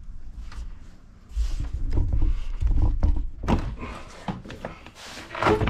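The factory plastic and rubber air-intake tube of a 2.7L Ford Bronco being worked loose and pulled off its fittings by hand. It gives irregular rubbing, scraping and dull thunks, the loudest from about a second and a half in.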